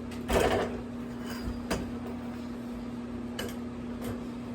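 Prop parts being handled: a brief burst of rustling and clatter near the start, then a few sharp clicks. A steady electrical-fan hum runs underneath.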